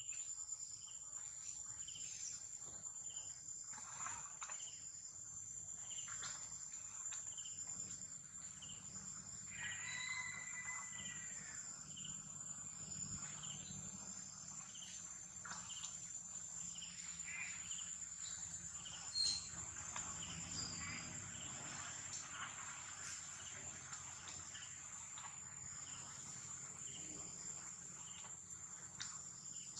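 A steady, high-pitched insect drone, with a faint chirp repeating about once a second. A short call sliding in pitch comes about ten seconds in, and a brief sharp knock just past the middle is the loudest sound.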